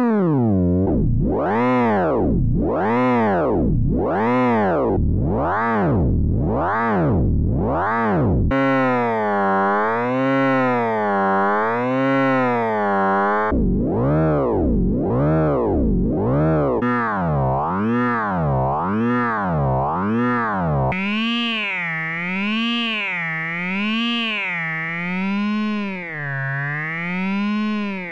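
Synthesized tones from the Rotatosound app (polygon vertex rotation synthesis): a harmonic-rich wavetable tone whose waveform is read from the vertices of a rotating 3D shape, its pitch tied to one vertex's position so it swoops up and down as the shape turns. It opens with deep repeated glides, then cuts three times to different timbres with smaller, faster pitch wobbles.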